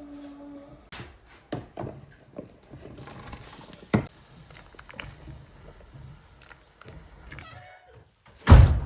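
Scattered knocks and clatters over a faint low rumble, with one much louder thump near the end.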